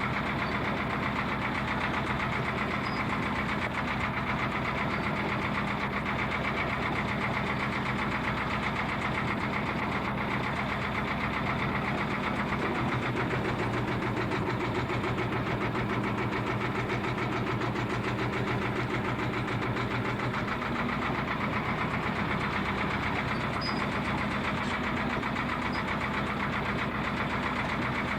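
Boat engine running steadily at a constant low hum.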